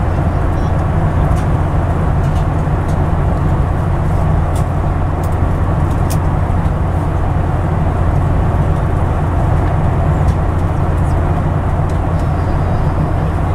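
Jet airliner cabin noise: the steady, deep rumble of engines and airflow heard from inside the passenger cabin.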